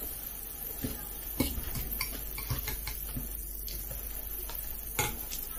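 A spoon tapping and scraping a ceramic bowl of mashed potato while eating: a few light, irregular clicks over soft low eating sounds.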